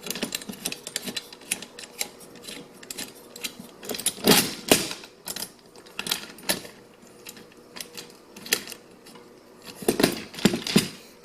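Small steel hardware handled and fitted by hand: nuts, washers and coupling nuts clicking and clinking against the chainsaw mill's metal frame as an adjustment post is bolted on. The clicks are irregular, with a few louder knocks about four seconds in and again near the end.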